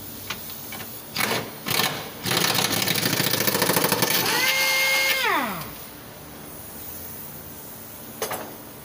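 A motor running with a fast rattle for about three seconds after two short bursts, then its whine dropping steeply in pitch as it winds down to a stop. A single click follows near the end.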